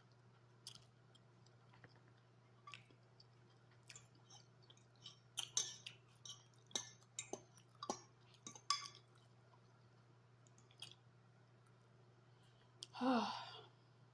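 Close-miked eating of spaghetti: scattered wet mouth smacks and clicks of chewing, bunched together around the middle, over a faint steady low hum. Near the end comes a short voiced sound from the eater.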